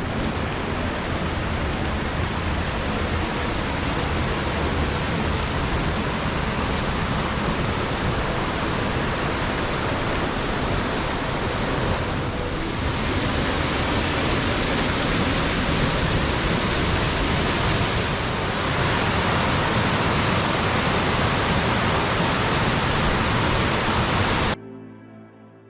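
Steady rush of river rapids, a loud even wash of moving water that cuts off abruptly near the end.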